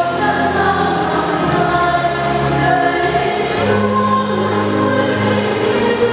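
Church choir singing a hymn in long held notes, several voices moving together.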